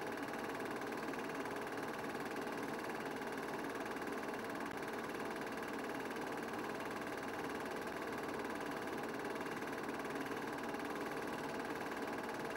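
Steady mechanical hum with hiss: a constant drone with a fixed pitch and no rise or fall.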